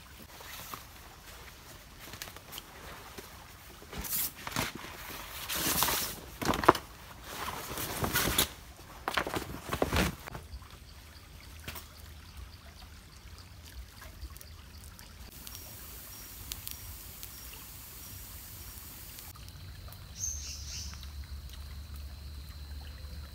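Water splashing and pouring, in a run of loud splashes over several seconds, then a quieter stretch.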